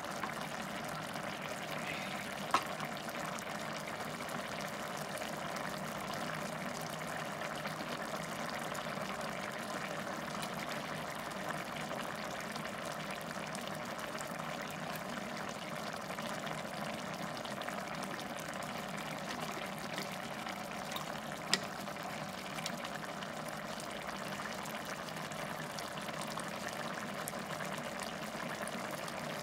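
A pot of mutton curry simmering on low heat: a steady bubbling hiss, with two sharp clicks, one a couple of seconds in and one near two-thirds through.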